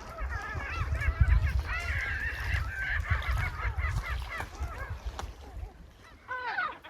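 A flock of birds calling over one another, many overlapping calls with a low rumble underneath; the calling thins out after about five seconds, and a single call sounds near the end.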